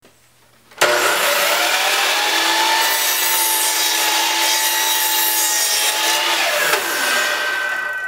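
A DeWalt sliding compound miter saw switched on about a second in. It runs with a steady high whine while the blade cuts through a small wooden board, then is released near the end and the whine falls in pitch as the blade winds down.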